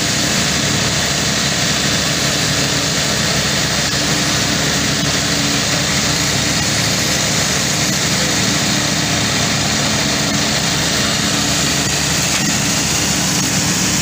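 Steady drone of heavy diesel machinery, the concrete pump truck and mixer truck engines, running during a concrete pour, with no letup.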